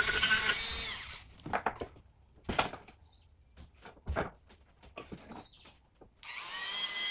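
Dremel rotary tool with a small wire brush buffing rust and scale off an old iron key. It winds down about a second in, and a few short scrapes and knocks follow. Near the end it starts up again with a rising whine.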